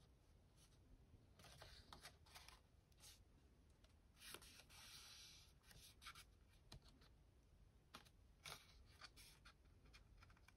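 Faint rustling and light taps of card stock being handled and pressed into place, with a brief rub about four seconds in.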